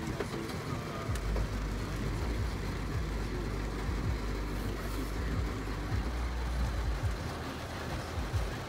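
Steady low rumble inside a car's cabin, with heavy rain hitting the windows and windshield.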